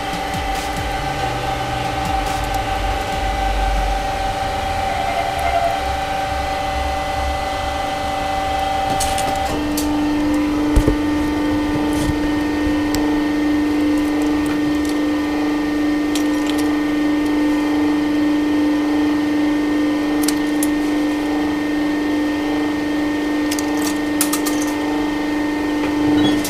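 Hydraulic press's pump unit running with a steady hum. About nine and a half seconds in, the hum drops to a lower, stronger tone. A few light clicks and a knock come over it.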